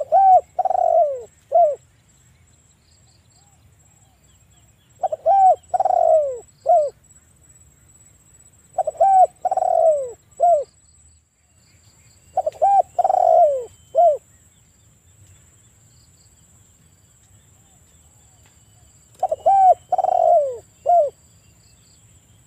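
Spotted dove cooing: five repeated phrases of about two seconds each, a few seconds apart, each a quick short note, a longer falling coo and a short closing note.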